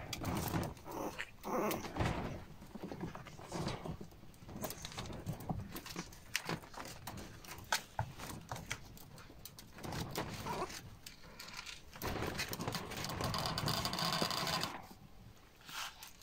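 Prague Ratter puppies play-fighting, with irregular scuffles, clicks and knocks of paws and toys on the bedding and plastic floor. A longer stretch of rustling comes about three-quarters of the way through.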